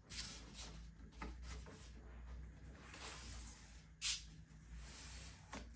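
Quiet handling noises of hands working on a 3D printer's steel frame: light rubbing and a few small clicks, with one sharper tap about four seconds in.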